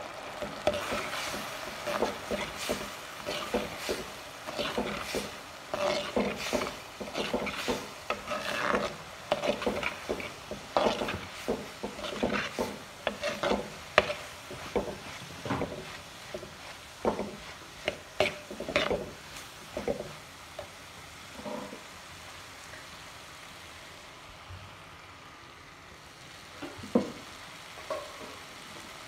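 Plastic spatula stirring frying vegetables in a clay pot, scraping the pot in quick repeated strokes over a low sizzle. The strokes thin out about two-thirds of the way through, with a couple more near the end.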